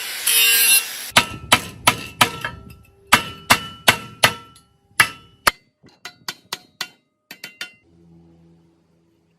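A hand tool rasping back and forth for a second, then a hammer striking metal over and over, each blow ringing, about three blows a second, trailing off into lighter taps.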